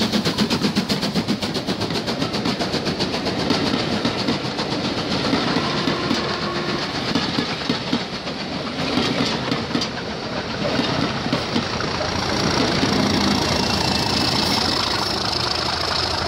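LMS Black 5 steam locomotive No 45212 passing close by under steam, its rapid exhaust beats fading in the first second or two. Then its train of coaches rolls past, wheels clattering over the rail joints.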